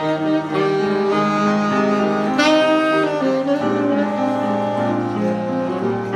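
Tenor saxophone playing a jazz melody in held notes, over a low accompaniment.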